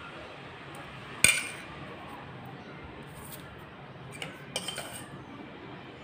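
Steel spoon clinking against a vessel as cooked sabudana paste is scooped out and dropped onto a plastic sheet: one sharp clink a little over a second in, then a few lighter clicks near the end.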